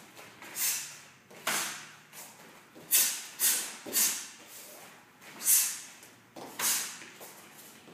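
A quick, sharp, hissing snap with each punch and kick of a taekwondo form, about eight in all at uneven intervals, each trailing off briefly in the hall's echo.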